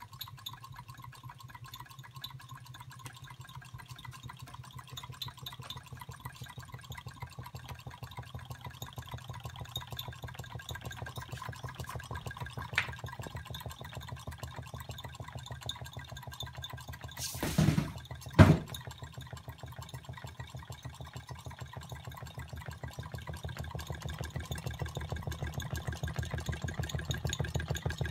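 Two Roland Reichelt ADLER model hot-air (Stirling) engines running together: a fast, steady mechanical ticking of their linkages over a low hum. About two-thirds of the way through there is a brief rustle, then a sharp knock.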